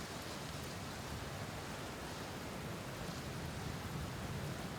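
Steady rainfall, an even hiss with no single drops or thunder standing out.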